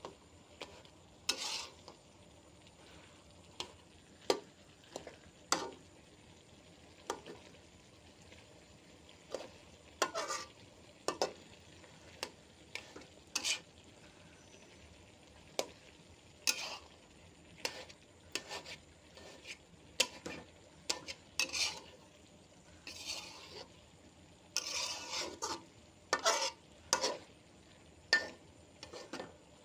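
A cooking utensil stirring and scraping food in a pan: irregular short scrapes and knocks against the pan, a few seconds apart and bunched more closely near the end.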